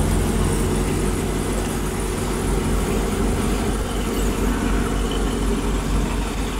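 A vehicle engine idling steadily with an even low hum.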